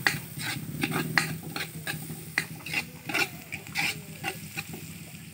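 Metal ladle scraping and knocking against a large metal cooking pot, about two to three strokes a second, while sliced onions sauté in margarine with a sizzle as they turn golden brown.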